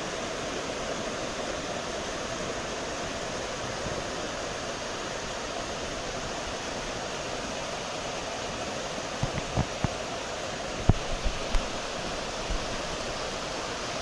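Waterfall rushing over tiers of rock: a steady, even roar of falling water. A few brief low thumps come near the end.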